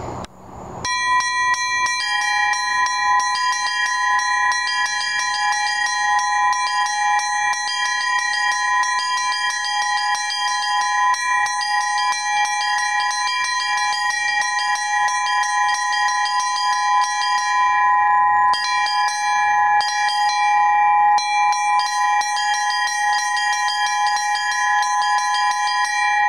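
Two small bells rung Russian style. The smallest bell is struck in a fast, even run of sixteenth notes, and a second, lower-pitched bell joins about two seconds in as an occasional ornament a split second before the main stroke. The rapid strokes break off briefly twice, about two-thirds of the way through.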